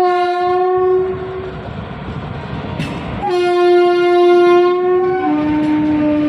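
Indian Railways locomotive air horn: a blast of about a second and a half, then after a pause a longer blast that steps down to a lower tone near the end and holds there. Underneath, passenger coaches roll past with a steady rumble and clatter of wheels on rail.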